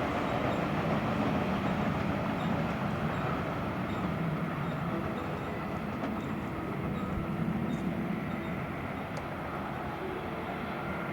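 Electric commuter train running on the track: a steady rumble of wheels on rail, slowly getting a little quieter.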